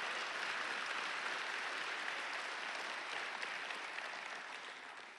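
Congregation applauding, the clapping slowly dying away over the last couple of seconds.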